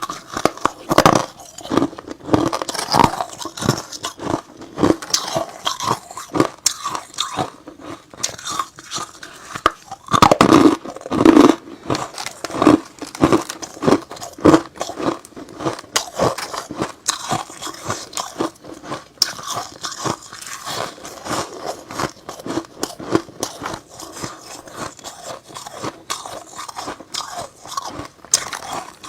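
Close-up crunching and chewing of hard ice and freezer frost: a rapid, irregular run of bites and crunches, loudest about ten seconds in.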